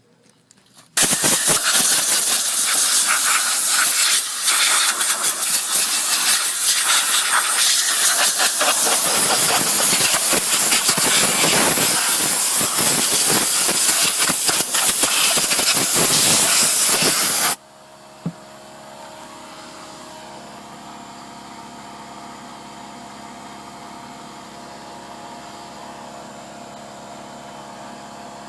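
Long, loud hissing blast of pressurised spray (compressed air or aerosol cleaner) blowing crud out of an engine part. It starts about a second in and cuts off suddenly after about sixteen seconds, leaving a quieter steady hum.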